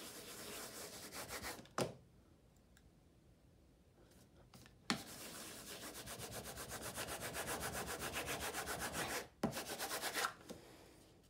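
A disc baren with a nubbed face rubbed briskly over paper on an inked polystyrene plate, pulling a hand-burnished relief print. It makes a dry scratchy rubbing in two spells: a short one at the start, then a louder run of rapid even strokes from about five seconds in, ending in a brief final flurry.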